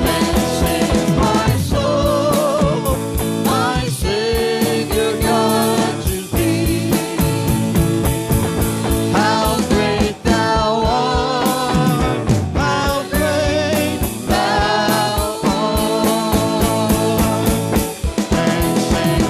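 Worship music with singing over a steady band beat.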